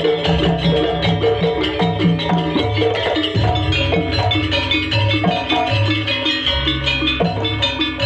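Live jaranan gamelan music: drums and tuned gongs and metal chimes playing a fast, repeating interlocking pattern over a low, recurring bass note.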